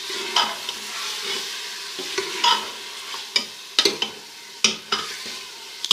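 Marinated beef stir-frying in ghee in a metal pot: a low, steady sizzle, held down as the meat releases its water. A spoon scrapes and knocks against the pot at irregular moments as it is stirred.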